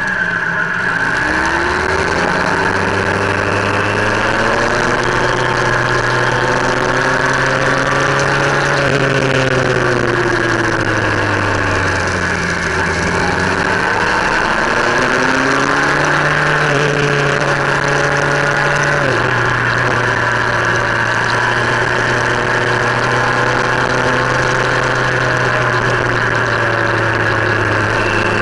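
Motorcycle engine heard from on board while riding, its pitch rising and falling with the throttle through the bends, dropping off about halfway and then holding steady, over a constant rush of wind.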